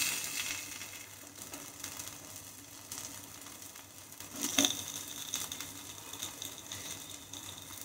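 Paneer frying faintly on an iron tawa, with steel spatulas scraping. A metallic clink about four and a half seconds in as a spatula knocks against the pan.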